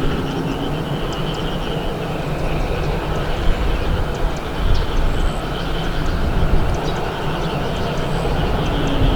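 Steady engine rumble with no sharp events.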